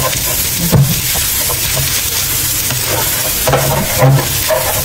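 Rice frying in a nonstick wok: a steady sizzle, with a plastic spatula scraping and knocking against the pan as the rice is stirred, the loudest knocks about a second in and about four seconds in.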